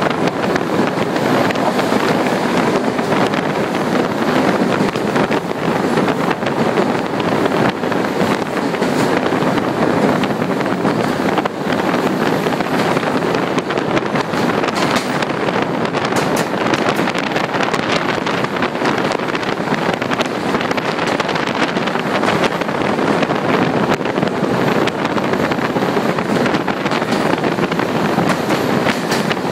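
Train running on the rails, heard from inside the carriage as a steady, loud rush of running noise with no clear rhythm.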